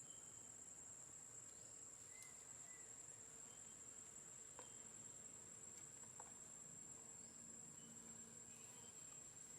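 Faint, steady high-pitched insect drone, in the manner of crickets, against near silence, with a few faint short chirps and a couple of soft clicks.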